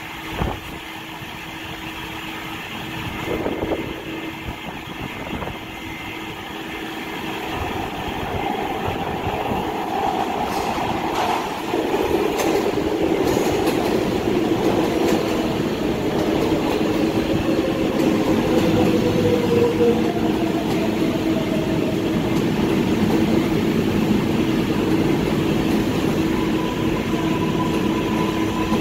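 A 7 line subway train of R188 cars pulls into an underground station and runs along the platform, its rumble building from about eight seconds in and staying loud as the cars pass. A falling whine comes through the noise partway through, and there is a short sharp knock right at the start.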